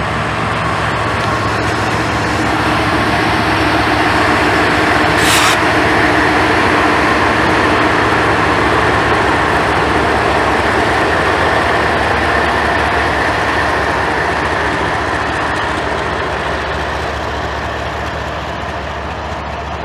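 BNSF diesel-electric freight locomotives running past, their engine drone giving way to the steady rumble of tank cars rolling on the rails. A brief hiss comes about five seconds in. The sound is loudest in the middle and slowly fades toward the end.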